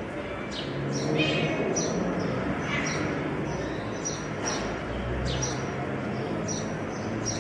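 Small birds chirping: short high chirps repeating irregularly, about two a second, over a low steady rumble.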